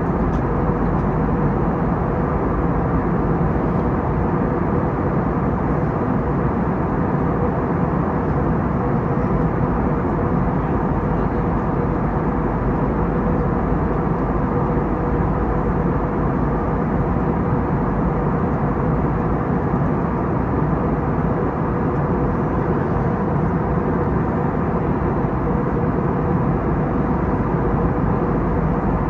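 Cabin noise aboard an Airbus A321neo, its Pratt & Whitney geared turbofan engines running at a steady low setting as heard from inside the cabin: a constant, loud drone with a steady hum running through it, not rising or changing.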